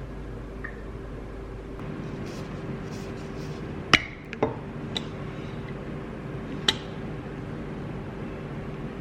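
Tableware clinking: four sharp clinks between about four and seven seconds in, the first the loudest, over a steady hum.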